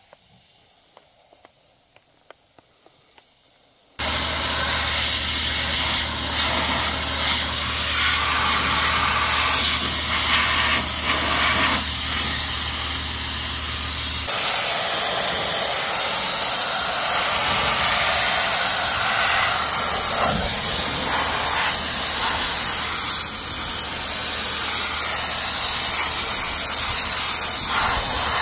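Pressure-pot sandblaster blasting crushed recycled-glass abrasive against the rusty underside and frame of a pickup truck to knock off loose rust: a loud, steady hiss of air and grit that starts suddenly about four seconds in after a quiet start. A low hum runs under the hiss for its first ten seconds or so.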